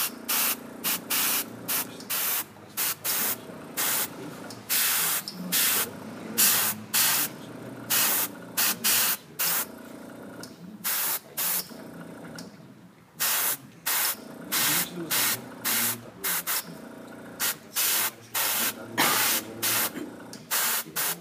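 Gravity-feed airbrush spraying paint in many short hissing bursts, about two a second, as the trigger is pressed and released, with a few longer bursts and a pause of about a second partway through.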